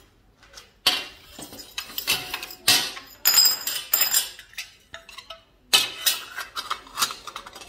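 Aluminium tubes and extrusion offcuts being set down on a steel workbench: a string of sharp clinks and clatters, several with a brief metallic ring.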